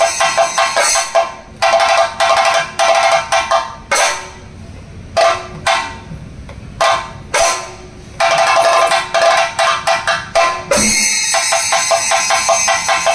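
Thayambaka: chenda drums beaten with sticks, with the steady ringing clash of ilathalam hand cymbals in the busy passages. A dense run of strokes gives way after about a second to sparse, separate strokes, then builds back into fast playing near the end.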